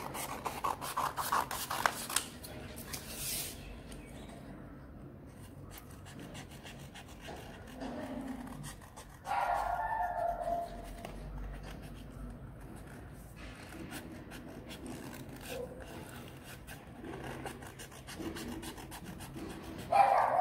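Scissors snipping and sliding through folded sheets of orange craft paper, with dense clicking snips over the first couple of seconds and quieter scraping cuts after that. A dog makes a brief, louder call about halfway through and again right at the end.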